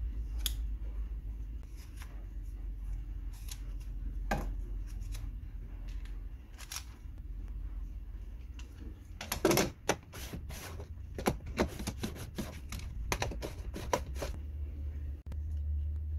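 Hand work on a plywood miter gauge fitted with a ceramic knob: scattered light clicks and knocks of wood and hardware being handled, with a quick run of them in the second half, over a steady low hum.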